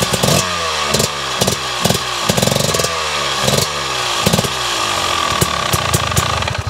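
2024 KTM 300 EXC TBI's two-stroke single-cylinder engine, breathing through an aftermarket enduro exhaust, blipped repeatedly on the throttle: each rev jumps up and falls back toward idle, about once a second, with sharp crackles between. Near the middle one rev is held a little longer.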